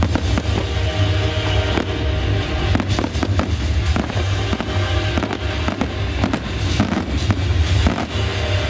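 Fireworks display: aerial shells and low-level mines bursting in quick, irregular succession, many sharp bangs with crackle, over music playing along with the show.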